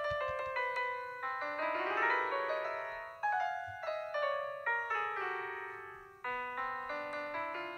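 Background music: solo piano playing a melody of struck notes, with a quick rising run about two seconds in.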